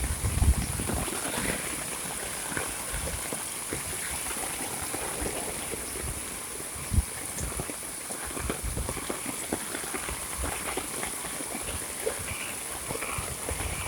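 Heavy monsoon rain falling: a steady wash of rain with many separate drops striking close by. There are a few low thumps in the first half second and one about seven seconds in.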